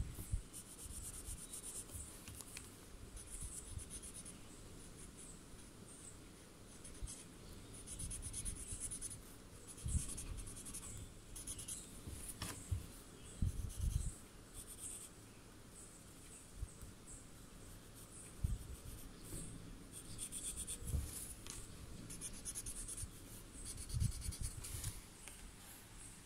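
Graphite pencil shading on a paper Zentangle tile: repeated short, scratchy strokes in quick bursts, with a few low bumps in between.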